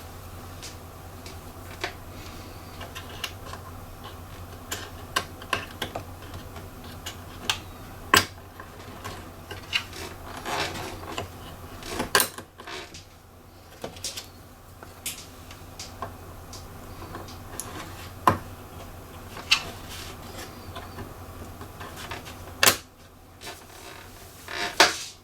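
Scattered clicks and taps of hard plastic and small metal parts being handled while a computer is taken apart for a memory swap, with a few louder knocks among them, over a steady low hum.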